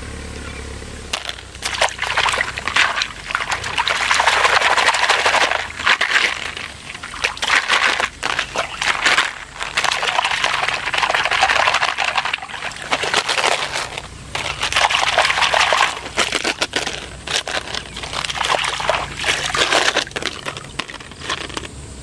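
Water sloshing and splashing as a plastic colander is dunked and swished in shallow stream water, the water running through its holes. It comes in repeated bouts of a few seconds each.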